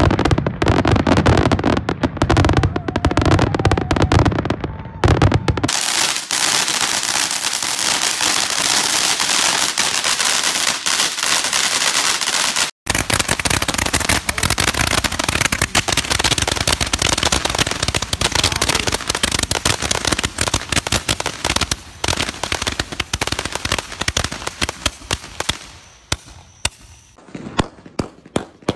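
Fireworks going off: dense, rapid crackling and bangs, then a continuous hissing rush of crackle. The sound cuts out for a moment just under halfway, then resumes and thins to scattered separate pops near the end.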